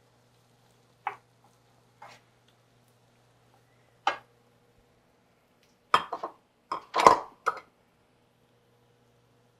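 A wooden spoon knocking and clinking against a Scanpan nonstick skillet while diced carrot, onion and garlic are stirred: a few single taps, then a quick cluster of louder knocks in the second half.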